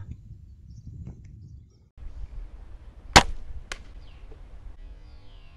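Slingshot rifle shooting: a sharp snap about three seconds in, followed about half a second later by a second, weaker crack.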